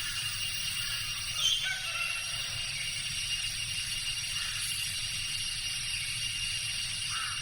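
Tropical forest ambience: a steady high-pitched insect drone, with a cock crowing briefly about a second and a half in and a few faint short bird calls later.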